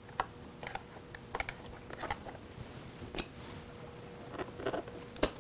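Scattered light clicks and taps of hands and a screwdriver working the plastic dashboard trim and its retaining clip on a Can-Am Spyder RT, as the piece is pushed free.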